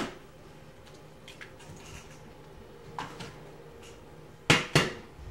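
Sharp knocks against a hard kitchen edge: a faint one about three seconds in, then a loud pair in quick succession near the end.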